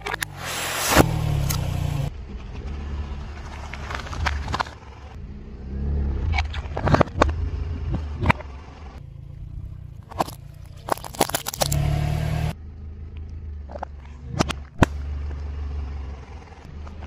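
A car creeping slowly over objects on asphalt, its engine humming low, while the tyre crushes them with about ten sharp cracks and two stretches of loud crunching, at the start and about halfway. One of the objects is a plastic spray bottle.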